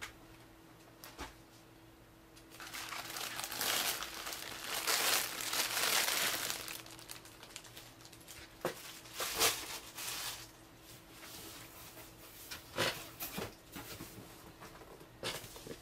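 Clear plastic wrapping crinkling and rustling as packages are handled and lifted away, for a few seconds, followed by a few short, scattered knocks.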